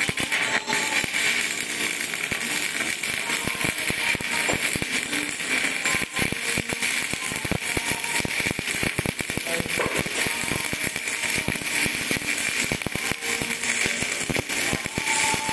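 Shielded metal arc (stick) welding: the electrode's arc strikes at the start and crackles steadily with a dense, rapid patter of pops as it lays a bead on steel.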